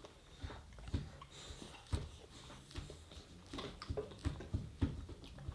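Quiet, scattered small knocks and soft rustles of young children eating and handling small snacks, over a low steady hum.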